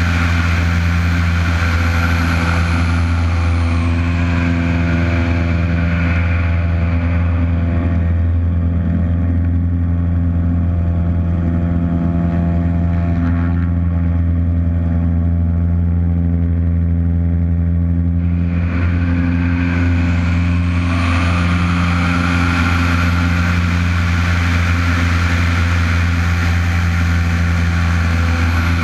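Lycoming piston engine and propeller of an aerobatic monoplane running steadily at high power, heard close up with airflow rushing over the microphone. The rush of air drops away about a third of the way in and returns about two-thirds of the way through as the plane manoeuvres. A faint high whistle falls in pitch near the start and again near the end.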